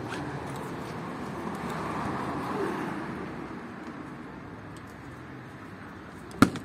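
Steady street traffic noise that swells and fades as a vehicle goes by. Near the end comes one sharp knock from the scooter's raised seat as it is taken hold of to be lowered.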